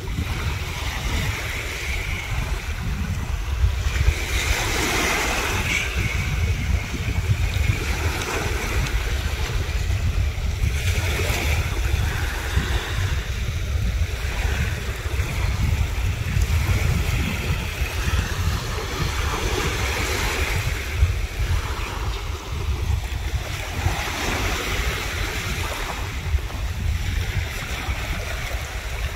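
Sea waves breaking and washing up the shore, surging every several seconds, with wind buffeting the microphone as a steady low rumble.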